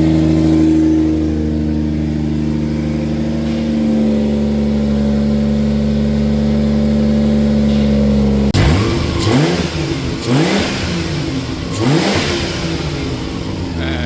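BMW B58 turbocharged straight-six engine running steadily, then, about eight and a half seconds in, revved up and down several times. Fresh spark plugs have just been fitted and the earlier misfire is gone; it is running way better.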